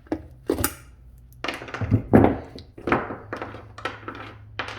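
Irregular metal clinks, knocks and scrapes from hand tools and wiring parts being handled against a garbage disposal, with the loudest knock about two seconds in.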